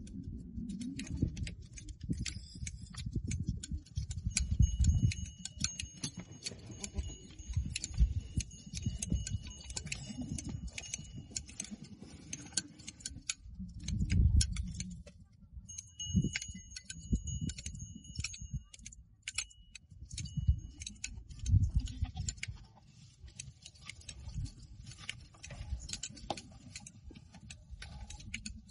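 Shears snipping through goat hair as several black goats are sheared at once: a dense, irregular run of sharp metallic clicks throughout. A faint high steady whine comes and goes twice, and irregular low thumps and rumble make the loudest moments.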